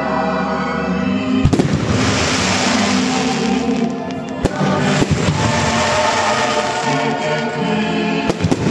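Aerial fireworks bursting with several sharp bangs, spread irregularly through the stretch, over music playing on the show's sound system.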